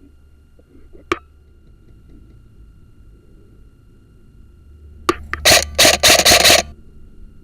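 Airsoft gun firing close to the microphone: a single sharp click about a second in, then another click and a rapid string of about five loud shots over roughly a second near the end.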